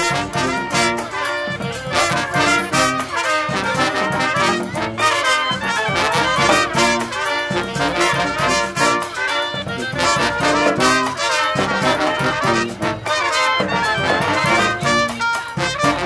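Live street brass band: trumpets, trombones, saxophones and sousaphone playing an upbeat tune together over a steady snare and bass drum beat.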